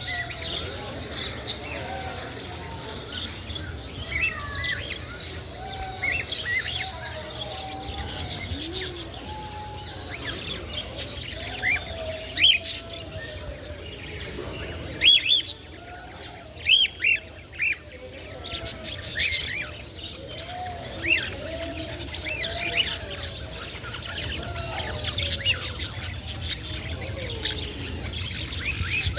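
Many caged pet birds chirping and calling at once, a steady chorus of short, high chirps with a few louder sharp calls about halfway through.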